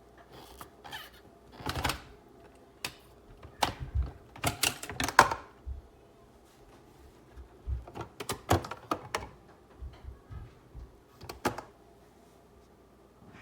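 Irregular clicks and knocks of hard objects being handled, coming in short clusters with pauses between.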